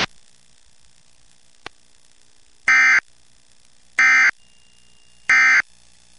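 Emergency Alert System end-of-message signal: three identical short bursts of SAME digital data tones, each about a third of a second long and a second apart, marking the end of the broadcast tornado warning. A single click comes about a second and a half in, before the first burst.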